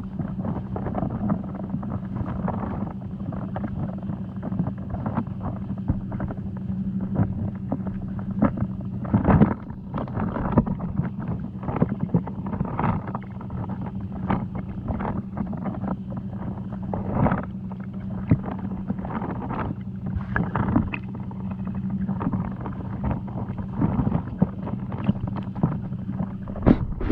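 Underwater sound picked up by a submerged camera: a steady low hum with frequent irregular clicks and knocks, the loudest knock about a third of the way in.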